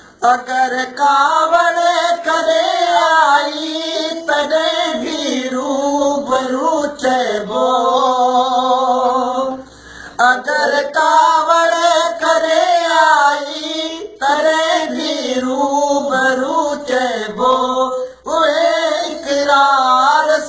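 A man singing a Sindhi song in a high voice, with wavering, ornamented held notes. He sings in phrases a few seconds long, with brief breaths between them.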